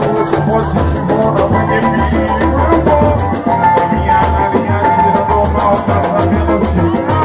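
A group playing music driven by drums and shakers, with a melody line over a steady, busy beat.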